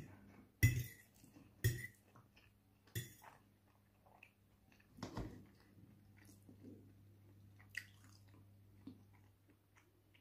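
Chewing of noodles, with a few sharp clicks and scrapes of a metal fork against a ceramic plate in the first five seconds, the loudest about a second in, then softer mouth and utensil sounds.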